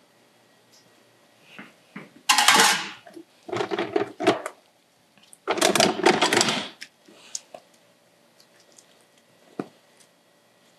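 Small hard objects clattering and rattling as they are handled and rummaged through, in three loud spells over a few seconds, with a few lighter clicks and one sharp knock near the end.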